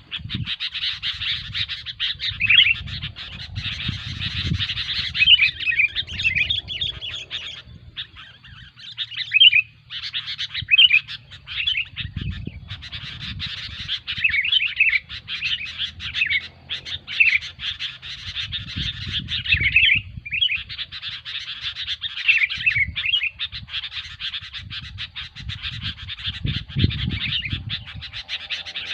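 Sooty-headed bulbuls (kutilang) calling noisily: a busy, nearly unbroken chatter of several birds with many short, quick call notes, over a low rumble.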